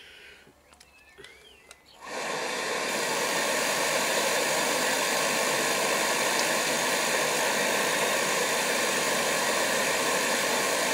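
Bentone oil burner's fan motor starting about two seconds in, spinning up within a moment to a steady whirring hum that holds level. It is the pre-purge stage, with the fan blowing air through before the oil valve opens and the electrodes spark.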